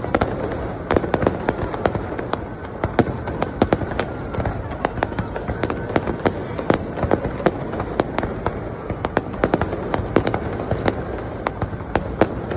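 Fireworks display: a rapid, irregular string of sharp bangs and crackles, several a second, over a continuous rumble of further bursts.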